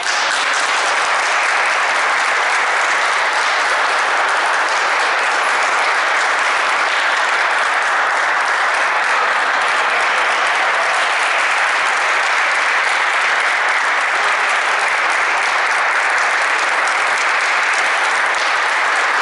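Crowd in a sports hall applauding steadily; it starts suddenly and holds at an even level.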